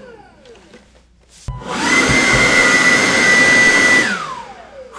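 Greenworks G-Max 40V cordless leaf blower switched on: its fan spins up to a steady high whine with a rush of air, runs for about two and a half seconds, then winds down with a falling whine.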